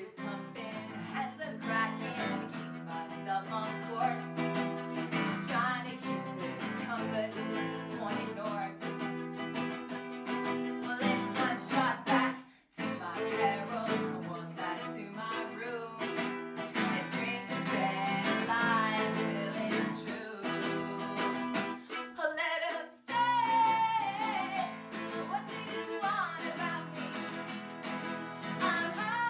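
Live acoustic song: strummed acoustic guitar with a voice singing over it. The music breaks off briefly twice, about 13 seconds in and again about 23 seconds in.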